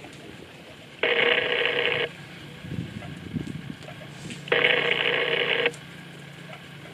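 A phone ringing twice, each ring a steady buzzing tone about a second long that starts and stops sharply, the second about three and a half seconds after the first, over a steady low hum.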